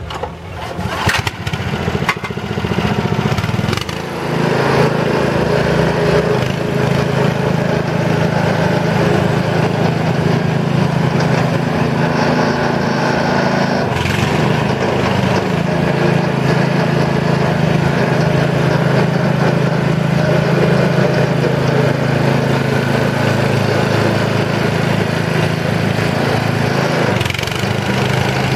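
Small Honda petrol engine of a Muck Truck wheeled mini dumper being pull-started, sputtering unevenly for the first few seconds, then catching and running steadily as the dumper drives along.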